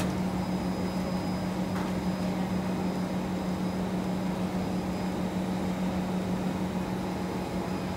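Steady hum inside a Kawasaki C151 MRT train car: a constant low drone with an even hiss over it, unchanging throughout.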